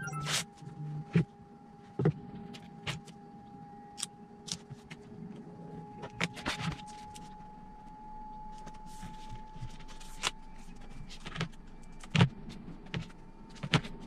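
Packing tape pulled off the roll with a short buzzing rip about a second in, then scattered taps, clicks and rustles as the tape is pressed onto a corrugated plastic (Coroplast) winglet and the piece is handled.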